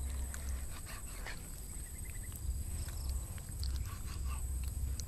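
Knife slicing boiled meat on a wooden chopping block, with a few faint taps of the blade against the board, over a low uneven rumble.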